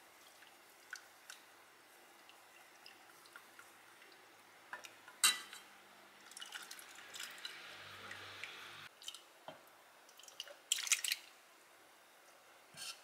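Wooden chopsticks stirring miso paste into the soup in a metal ladle, with soft sloshing of liquid and scattered light taps of chopsticks and ladle against a stainless steel pot. There is a louder knock about five seconds in and a quick cluster of clinks near the end.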